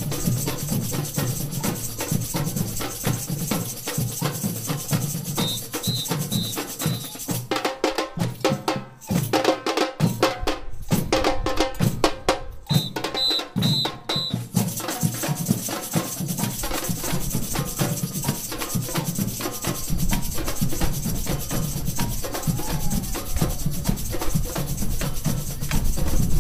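Samba bateria drum band playing in a street procession: bass drums, drums and metal shakers in a dense, driving groove. Partway through, the high shaker hiss drops out and the hits thin out for a few seconds, with short high pips, four at a time, just before and near the end of this sparser stretch. The bass drums are heavier in the last few seconds.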